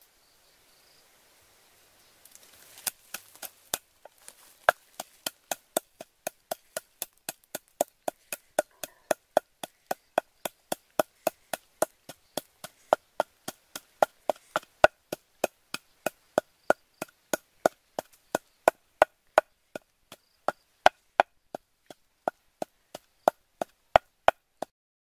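Wooden pestle pounding in a mortar, a steady knock about two and a half times a second, starting a few seconds in after a little rustling.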